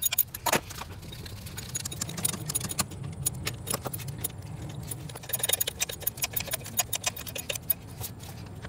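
Socket ratchet clicking in quick runs while turning a bolt on the alternator, stopping about half a second in and starting again about five seconds in, over a low steady hum.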